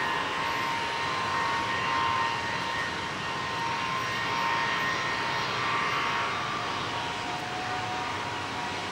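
Jet airliner engines running at taxi power: a steady whine over a broad rush, one tone of the whine dropping slightly in pitch near the end.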